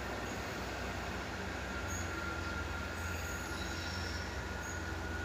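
Distant GBRf Class 73/9 electro-diesel locomotives running on their diesel engines as the train pulls away, a steady low rumble. Over it is a thin, steady high-pitched squeal from the wheels on the rails.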